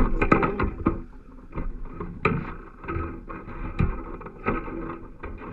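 Handling noise on a fishing rod: irregular knocks and rubbing as a caught pollack is grabbed and held beside the rod.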